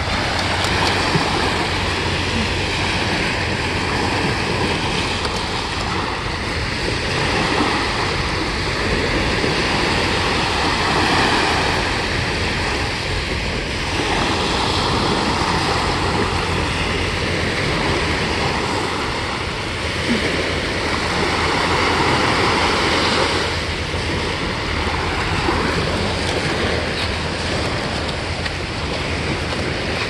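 Small Chesapeake Bay waves breaking and washing up on a sandy beach, swelling and easing every few seconds, with a steady low wind rumble on the microphone.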